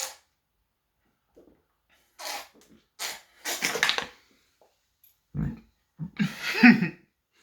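A person's short breathy, sneeze-like vocal bursts: a few hissing exhales, then a louder cough-like burst near the end.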